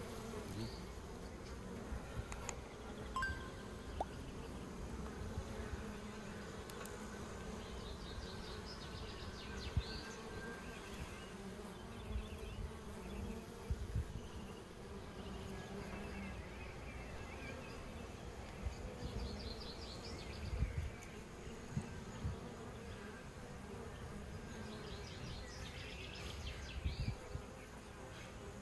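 Honeybees buzzing in a steady hum around open hives and freshly cut honeycomb.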